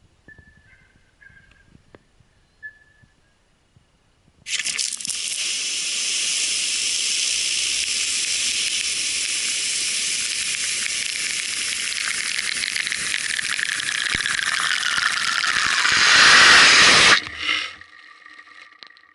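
Pop-up lawn sprinkler spraying water: a loud steady hiss that starts suddenly a few seconds in, grows louder near the end and cuts off abruptly.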